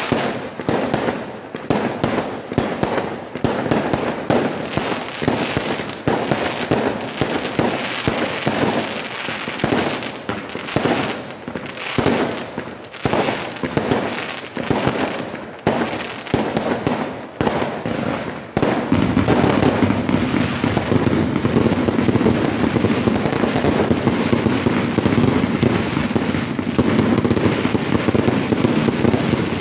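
Fireworks display: aerial shells bursting one after another in quick succession, with crackling. About two-thirds of the way in, it thickens into a louder, continuous barrage of overlapping bangs.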